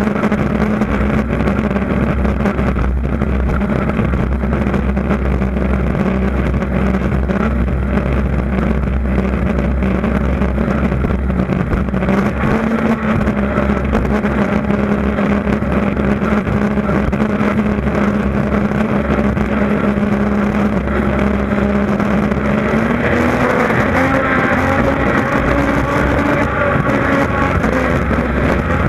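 Jersey speed skiff's engine running hard at speed, with wind and water rush over the boat. The engine note climbs a little about three-quarters of the way through.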